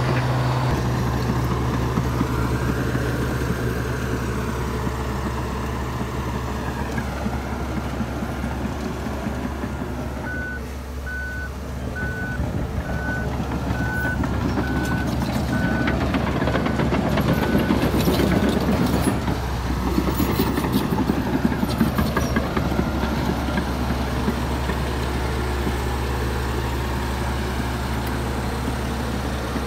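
Heavy diesel earthmoving machinery, a Komatsu D61EX bulldozer on the job, running steadily under varying load. A reversing alarm beeps about once a second for several seconds in the middle.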